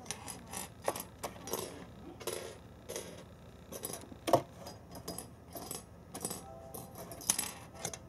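A Norwegian Forest Cat pawing and batting at a cardboard box on a wooden floor: irregular scrapes and taps, the loudest tap a little past four seconds in.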